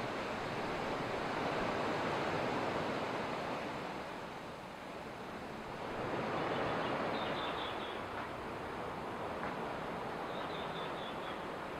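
Sea surf washing onto the beach, a steady rush of waves that swells, eases off in the middle and swells again.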